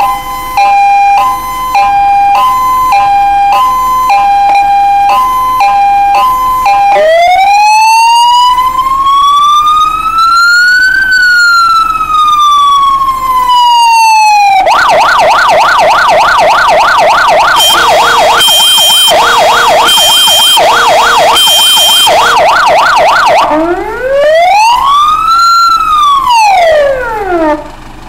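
Fire engine's electronic siren run through its tones. First a two-note hi-lo alternation, then one slow wail that rises and falls, then a fast yelp with a high beeping tone over its middle part, then one shorter wail. It cuts off near the end, leaving the truck's diesel engine idling.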